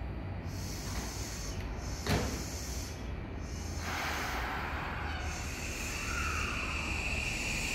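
An Odakyu Line train on the track beside the platform: a single knock about two seconds in, then from about halfway the rush of the train running on the rails, with a steady high-pitched whine that joins it and holds.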